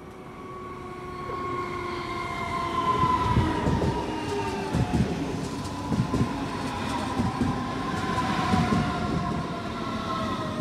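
Red electric S-Bahn multiple unit running in along the platform, growing louder over the first few seconds as it comes close. Its motor whine sits as a few steady tones that slowly drop in pitch, and from about three seconds in its wheels knock over the rail joints.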